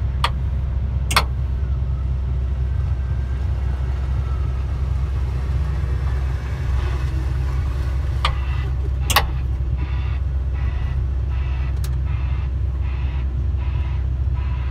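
Steady low drone of heavy diesel earthmoving machinery heard from inside a cab, with a few sharp knocks and clicks. In the second half a faint ticking comes in at about two a second.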